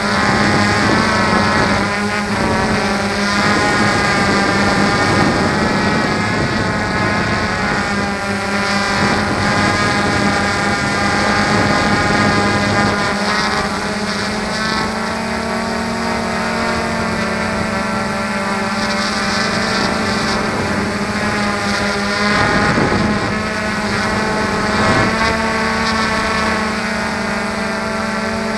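Small multirotor drone's electric motors and propellers running steadily in a hover, a loud whine whose pitch keeps drifting up and down slightly as the motors adjust speed.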